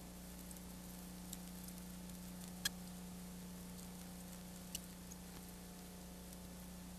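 Faint steady hum and hiss with a few scattered sharp clicks, the loudest about two and a half seconds in and another near five seconds: the background noise of an old film or tape transfer with no soundtrack.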